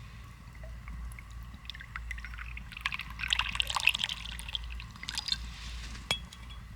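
Liquid pouring and splashing for a few seconds, loudest in the middle, then a single sharp click near the end.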